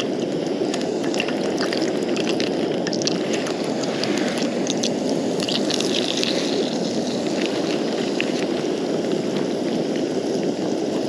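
Walleye frying in hot oil in a pan: a steady sizzle with a scatter of small crackling pops.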